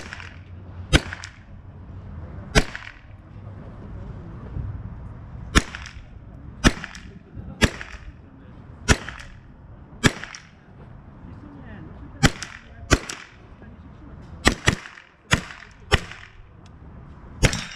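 A .22 rimfire mini rifle firing about fifteen single shots at uneven intervals, mostly a second or so apart, with a few longer pauses and two shots close together a little past halfway.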